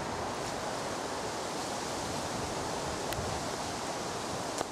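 Steady hiss of wind, with two faint clicks, one about three seconds in and one near the end.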